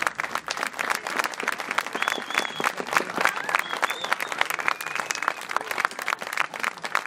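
Audience applauding, with many hands clapping irregularly. A few short high-pitched tones sound over the clapping around the middle.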